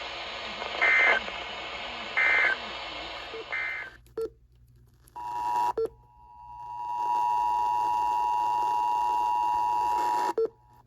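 Emergency Alert System tones over radio hiss: three short bursts of shrill digital data tones about a second apart (the end-of-message signal), then the hiss cuts out with a click. About five seconds in, the two-tone EAS attention signal comes in, fades up and holds steady for about four seconds before cutting off with a click near the end.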